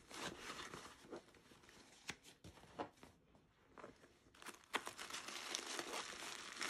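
Tissue paper and packing material rustling and crinkling as it is handled and pulled from a leather handbag's compartments, with short sharp crackles. It thins out around the middle and gets busier again in the last couple of seconds.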